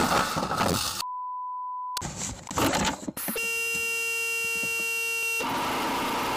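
A censor bleep: a pure steady beep, about a second long, starting about a second in. Later a second, buzzier electronic tone holds for about two seconds. There is noisy sound from the footage between and around them.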